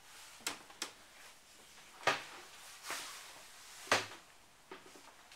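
Footsteps and knocks on a sailboat's wooden cabin floor: about five sharp thuds and taps, the loudest about four seconds in.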